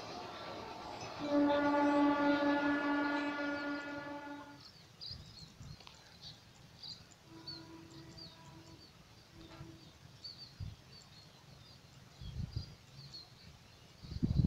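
Diesel locomotive horn sounding one long steady blast, over the fading rumble of a passing train. Later a distant horn sounds faintly twice, with birds chirping and a few low thumps near the end.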